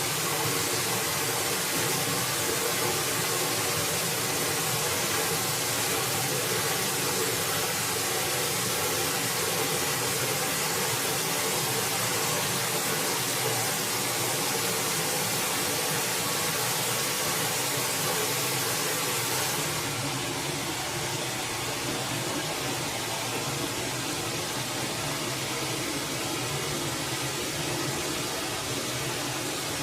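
Steady rushing of a forest stream, an even hiss that turns duller about two-thirds of the way through.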